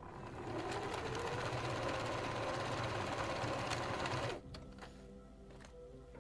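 Domestic electric sewing machine running steadily as it stitches a seam through two layers of cotton fabric, stopping after about four seconds. Faint background music follows.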